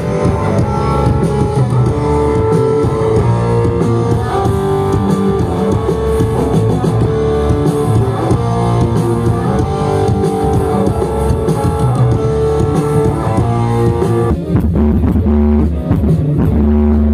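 Music with guitar, bass and drums played loudly through an RCF concert PA during a sound check. About 14 seconds in, the treble falls away and deep sub-bass dominates.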